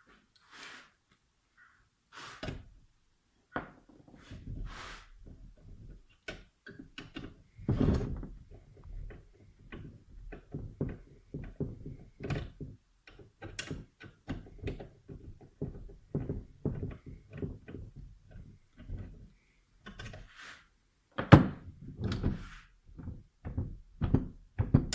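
Irregular knocks and clatter of hand tools and metal parts being handled while a scooter's variator is taken apart. The loudest knocks come about eight seconds in and about twenty-one seconds in.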